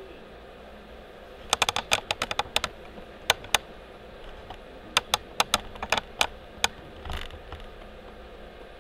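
Two quick runs of sharp, light clicks, keyboard-like, a second and a half and five seconds in, then a brief rustle, over a steady background hiss.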